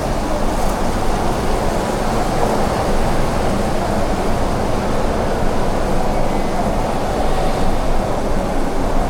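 Rail car running on its track: a steady rumble and hum.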